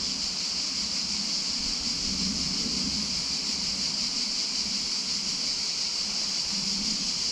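Steady outdoor background: an even high-pitched hiss with a faint low rumble, as of light wind on the microphone.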